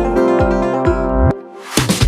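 Electronic remix music: synth keyboard notes over a steady kick-drum beat of about two beats a second. The music drops out briefly about two-thirds of the way through, and a loud noisy swell comes in just before the end.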